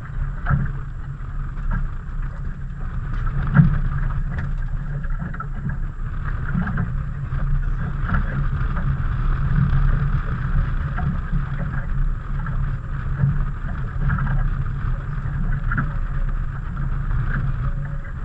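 Steady wind and water noise aboard a small fishing boat, with a few light knocks on the boat and a sharper knock about three and a half seconds in.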